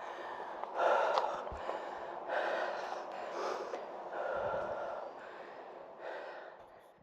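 A person breathing hard, a series of heavy puffing breaths about every second or so, from the exertion of a steep climb in the heat.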